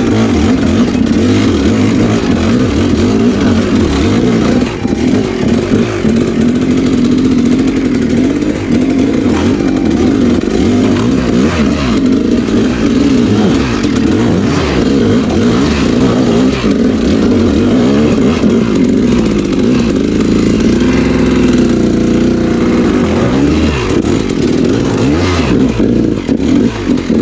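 Off-road motorcycle engine running under load on a rough trail, its pitch rising and falling continually with the throttle.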